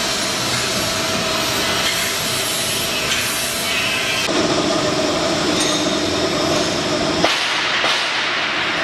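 Fish meal mixer machine running with a loud, steady mechanical hum and hiss. About halfway through a lower hum joins, and a sharp knock comes near the end.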